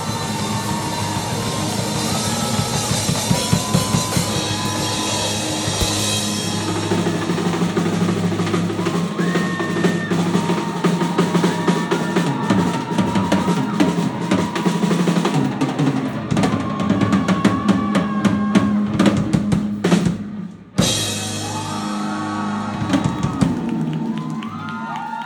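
Live rock band playing loud, with heavy drum kit fills, bass drum and snare, under guitar and keyboard lines. About twenty seconds in the band cuts out for a moment, then hits a final loud chord that rings on as the song ends.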